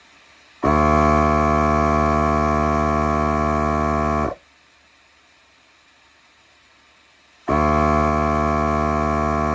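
Milwaukee M18 cordless inflator's compressor pumping with a steady buzz for about three and a half seconds, then winding down and stopping, and starting again about two-thirds of the way in. It is filling toward a preset 33 psi and shuts off on its own once it reaches target pressure.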